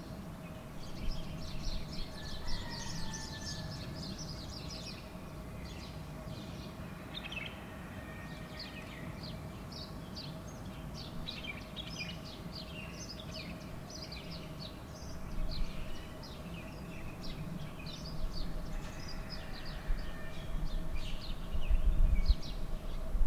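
Wild birds chirping and trilling, many quick high notes overlapping, over a steady faint hum. A low rumble swells near the end.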